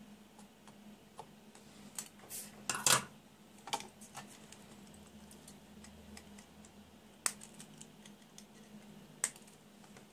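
Scattered light clicks and knocks as a circuit board and hand tools are handled on a workbench, with the loudest cluster about three seconds in. A faint steady hum runs underneath.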